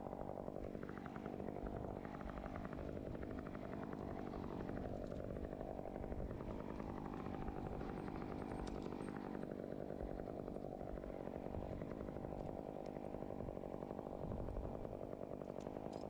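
Chainsaw engine idling steadily, not cutting, with an even low running note throughout.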